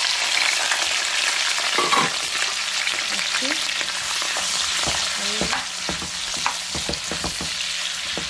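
Sliced onions and green peppers sizzling in hot oil in a frying pan, the sizzle loudest at first and easing slightly. A spatula stirring them makes short scrapes and taps against the pan.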